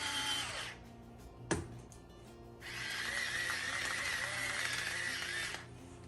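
A small electric motor runs in two stretches, a high steady whine over hiss, stopping about a second in and starting again near the middle. A sharp click falls between the two runs.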